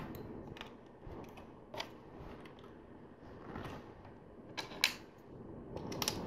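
Plastic LEGO bricks being handled and pressed onto a model: scattered short, sharp clicks and light clacks, two of them close together a little past the middle.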